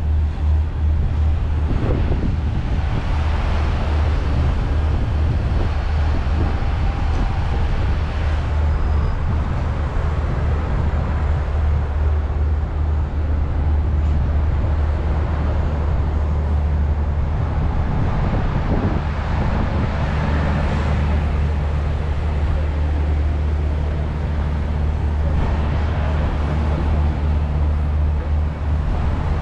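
Steady city road traffic with a heavy low rumble underneath. A few louder swells come and go as vehicles pass.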